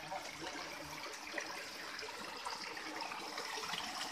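Thin streams of water running from cow-head spouts and splashing onto a stone drain grate below: a steady, soft trickle.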